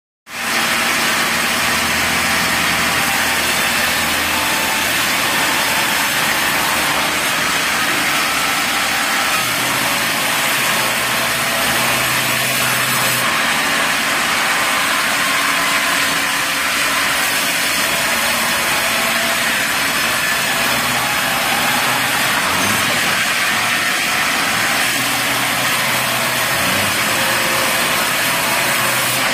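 Vertical log band saw running and cutting through a log, a steady loud hiss of blade on wood, with a faint hum underneath that shifts now and then.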